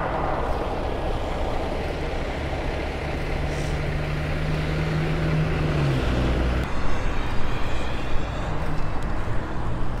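Road traffic: motor vehicles passing with engine and tyre noise. One engine's hum holds steady, then drops in pitch a little under six seconds in as it goes by.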